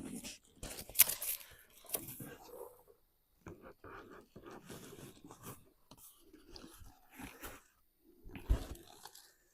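Packaging around a new car door window being handled and pulled open: irregular rustling and crackling with a few sharper clicks, the loudest about a second in and again near the end.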